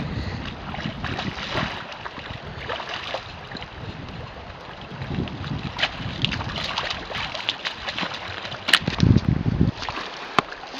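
Water splashing as a hooked fish thrashes in the shallows at the river's edge, with wind rumbling on the microphone in gusts. A few sharp splashes come near the end.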